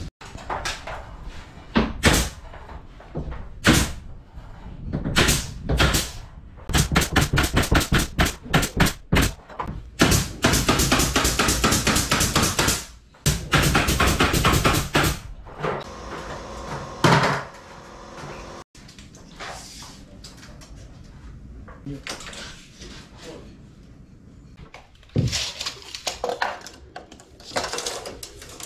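Renovation work: a series of sharp knocks and impacts, a fast run of hammer-like strokes about seven seconds in, then several seconds of continuous harsh noise, with quieter scattered knocks later on.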